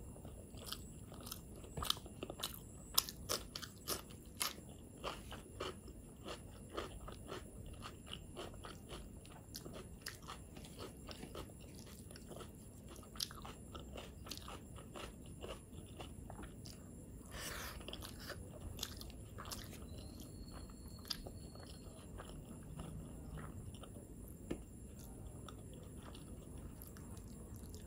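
Close-miked eating: a person chewing mouthfuls of rice and chicken gravy, with crisp crunching clicks that come thick and fast in the first few seconds, then slower, sparser chewing.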